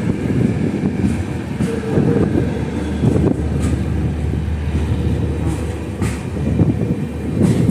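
Passenger train rolling along the track, heard from inside the coach: a steady low rumble with a few scattered knocks from the wheels.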